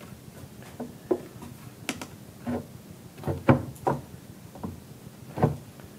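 Statue parts being handled, giving a string of light knocks and clicks, about nine of them at uneven intervals, the loudest a little past halfway.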